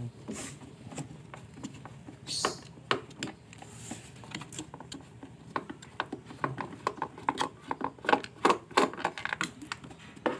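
Irregular small clicks, taps and scrapes of a screwdriver working at the screws of a high-pressure washer's plastic housing during disassembly, growing busier in the second half.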